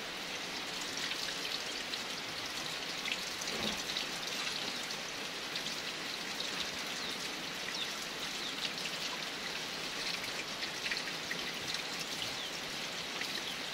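Tap water running and splashing into a stainless steel sink while tomatoes are rinsed under it: a steady pattering splash with many small drips.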